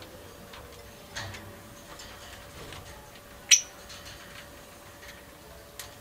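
Pet budgies in a cage making scattered small clicks and taps, with one much louder, sharp click about three and a half seconds in, over a faint steady hum.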